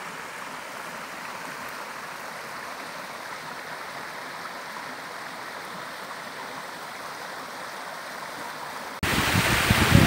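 Steady rush of a rocky mountain stream. Near the end it cuts suddenly to a much louder rush of water pouring over the rocks at the top of a waterfall.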